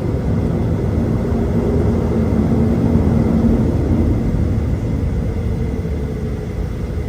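Airplane engines running with a steady low rumble and a faint hum, swelling slightly about three seconds in and then easing off.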